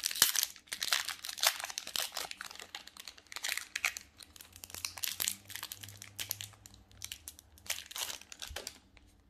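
Foil wrapper of a Magic: The Gathering collector booster pack crinkling and tearing as it is opened by hand and the cards are pulled out. The crackling is dense and irregular and stops shortly before the end.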